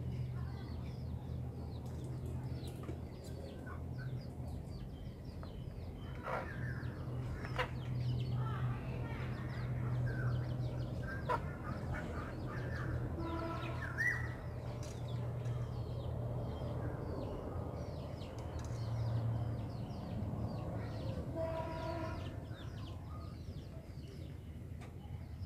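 Birds chirping and calling over a steady low hum, with many short faint clicks throughout, a short rising call about a third of the way in and a brief pitched call near the end.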